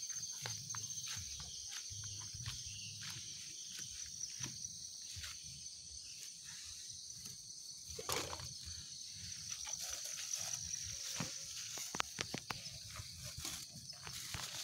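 A steady high insect trill over close rustling and crinkling as leaves and plastic bags are handled, with scattered clicks and a louder bump about eight seconds in.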